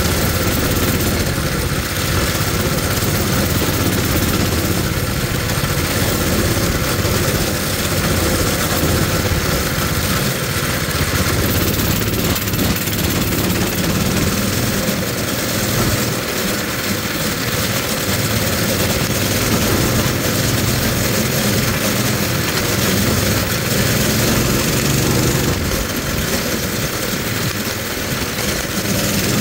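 Coleman mini bike's small single-cylinder four-stroke engine running steadily under way, with a second mini bike ahead, and an even rush of noise over the engine throughout.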